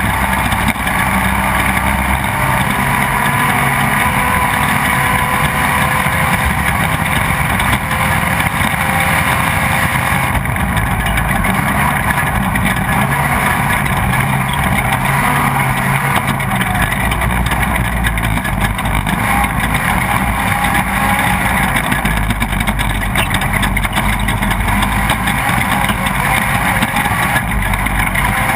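Off-road race vehicle heard from on board: its engine is running steadily at speed over a constant rush of noise, with no pauses.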